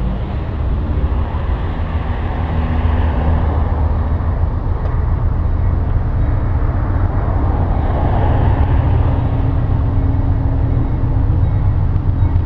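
Diesel freight locomotive approaching from a distance: a steady low rumble that grows gradually louder.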